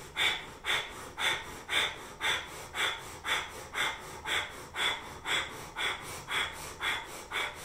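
A woman doing breath of fire, the rapid Kundalini yoga breath: short, forceful puffs of air in and out through the nose, about two a second in an even rhythm.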